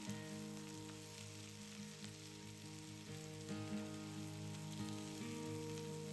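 Food sizzling in hot oil in a frying pan: a steady crackling hiss. Soft background music with held notes plays under it.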